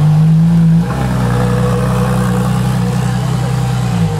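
A car engine running loudly with a deep, steady note that steps down in pitch about a second in, then holds.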